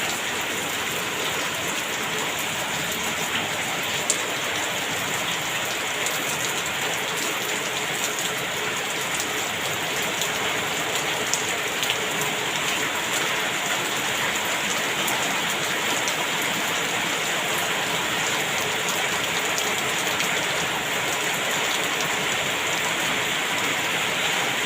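Heavy rain falling steadily, with many small drop impacts pattering on surfaces and a few louder ticks.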